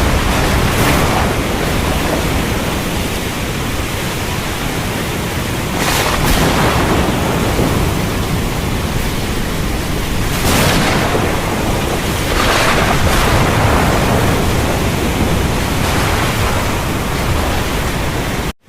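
Heavy, steady rain with sharp thunder cracks about six, ten and twelve seconds in. The sound cuts out abruptly for a moment just before the end.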